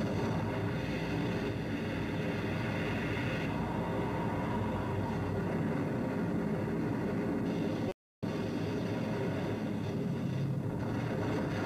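Steady rushing storm noise from the soundtrack of a 1938 hurricane documentary, played over loudspeakers in a hall, broken by a split-second dropout about eight seconds in.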